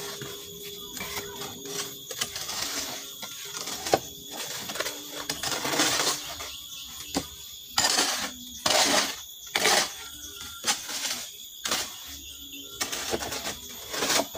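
A hoe scraping and chopping through wet cement mortar in a steel wheelbarrow, with stones knocking as they are set into a rubble-stone wall. Irregular scrapes and clinks, the longest scrapes coming in a cluster around the middle.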